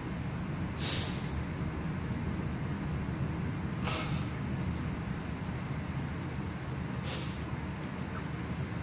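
A man sniffling while he cries: three short hissing sniffs, about three seconds apart, over a steady low rumble.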